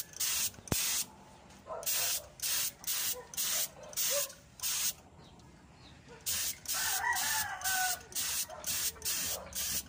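Paint spray gun hissing in short bursts, roughly two a second in three runs, as it sprays paint onto a motorcycle fuel tank. A rooster crows in the background about two-thirds of the way through.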